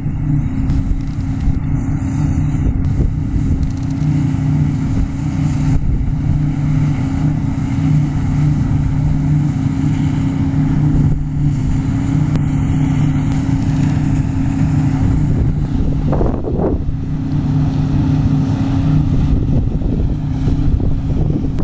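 Diesel engine of harvesting machinery running steadily at working speed, with a constant low hum and wind buffeting the microphone.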